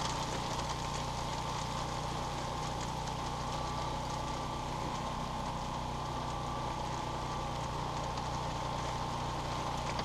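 Heavy rain falling steadily, with the steady hum of a generator engine running underneath.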